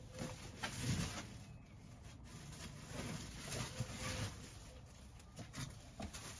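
Faint rustling of plastic-bagged clothing, with scattered light knocks, as cardboard boxes on stockroom shelving are rummaged through.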